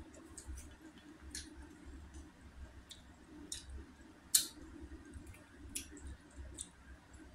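Close-up eating sounds: scattered wet mouth clicks and smacks of someone chewing, with one sharper, louder click about four seconds in.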